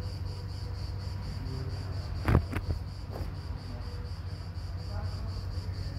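Insects shrilling steadily in an evenly pulsing high band over a constant low rumble. Two sharp knocks come close together a little past two seconds in.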